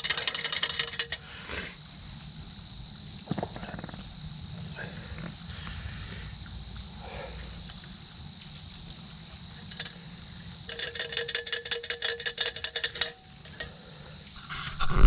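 Woodland sounds: a steady high insect drone, with two bursts of rapid pulsed animal calls at about eleven pulses a second. The first burst is short and comes at the start; the second, longer and the loudest, comes about eleven seconds in.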